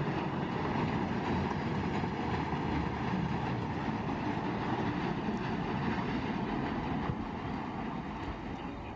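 Freight train of tank wagons rolling past: a steady rumble of wheels on rail that eases slightly near the end as the last wagons go by.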